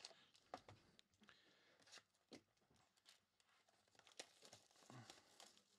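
Near silence, with faint scattered rustles and light taps as foil-wrapped trading card packs and boxes are handled and moved on a table.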